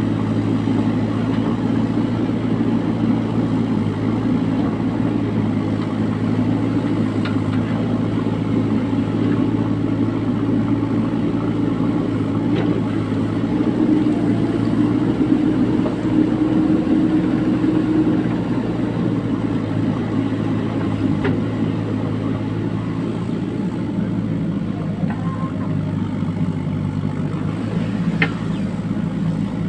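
JCB 3DX backhoe loader's diesel engine running steadily, a little louder for a few seconds midway, with a few faint clicks or knocks.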